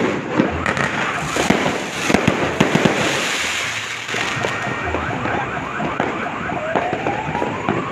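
New Year fireworks going off: rapid bangs and crackles for the first few seconds. After that comes a quick run of short rising whistles, and near the end one longer whistle climbing in pitch.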